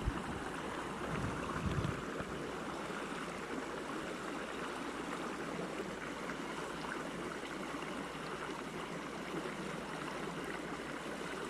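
Steady rush of a mountain trout creek's flowing water, with a brief low rumble in the first couple of seconds.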